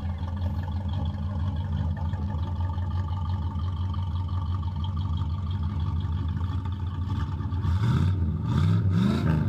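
1984 Chevy Caprice's 350 small-block V8 with an Edelbrock carburetor and dual exhaust idling steadily, then revved up and back down a couple of times near the end.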